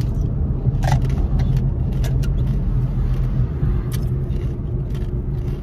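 Steady road and engine rumble inside a moving car's cabin. Over it come scattered sharp crunches and clicks of ice tipped from a cup and chewed.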